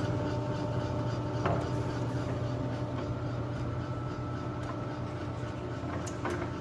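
Machinery running with a steady hum that holds several even tones, with faint clicks about a second and a half in and again near the end.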